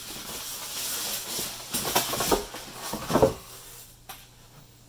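Thin plastic protective bag rustling and crinkling as it is pulled off a boxed monitor, with a few sharper crackles about two to three seconds in, then quieter near the end.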